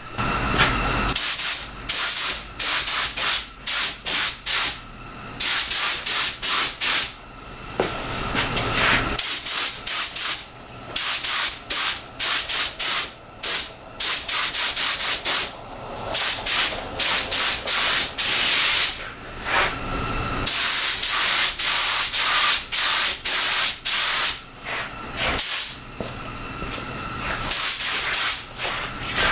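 Pneumatic paint spray gun hissing as base coat is sprayed, the trigger pulled and released over and over: mostly short passes of about a second, with a few longer ones lasting several seconds.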